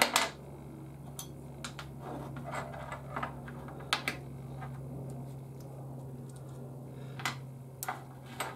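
Small metal parts (ball bearings, washers and a bolt) clicking and clinking as they are pulled apart by hand and set down on a workbench, a scattering of separate clicks over a steady low hum.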